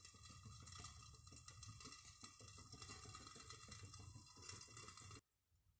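Faint sizzling and crackling of a rice-batter dosa frying in a covered pan on a gas burner, with many small rapid crackles over a steady hiss. It cuts off abruptly about five seconds in.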